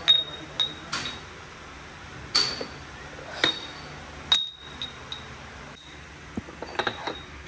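Machined steel truck kingpins clinking against one another as they are handled and set down side by side, each knock ringing briefly. The clinks come irregularly, the loudest about four and a half seconds in and a quick run of them near the end.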